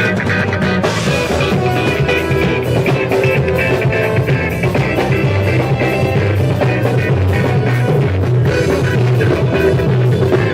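Instrumental rock music with electric guitar, bass and a drum kit playing steadily.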